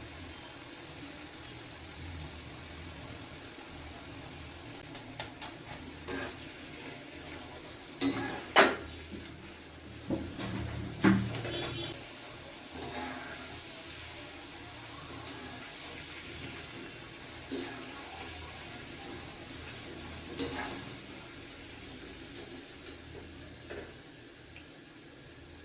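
Raw plantain slices frying in hot oil, a steady sizzle, broken by several sharp knocks of a utensil against the pan. The loudest knocks come about a third of the way in.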